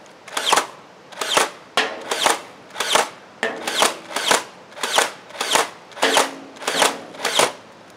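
Modified Nerf Stampede, a motorized spring-plunger blaster, firing on full auto: about thirteen sharp shots at a little under two a second, each with a short falling whine, and a faint motor hum between some of them. The slow rate comes from a blaster that has sat unused a long time and is due for a complete overhaul.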